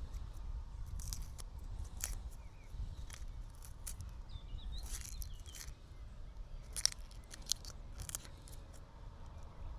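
Scattered short, sharp clicks, loudest about seven seconds in, over a steady low rumble, with faint bird chirps around the middle.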